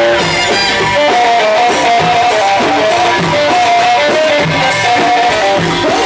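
Loud live Egyptian sha'bi wedding band music: a lead melody of short repeated notes over a steady rhythm on hand-beaten frame drums.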